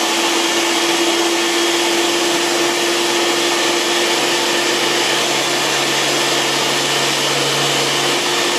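Electric mini food chopper running steadily with an even motor whine, held on by pressing down its top, blending a wet sauce of mango, canned tomatoes and spices.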